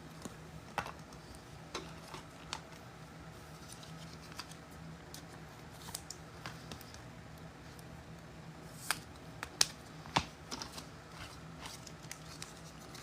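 A trading-card pack being opened and its cards handled: scattered light clicks and crinkles, with a few sharper snaps about nine and ten seconds in, over a faint steady low hum.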